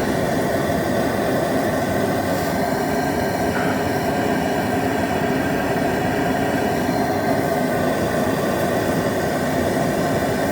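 Propane torch burning steadily with a constant rushing hiss, heating the oil pan of a 1965 Lincoln SA-200 welder's engine to warm the cold oil before a start.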